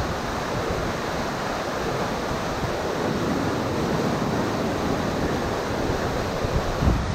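Whitewater rapids rushing steadily over a rocky drop on a canoe slalom course, with a brief low thump near the end.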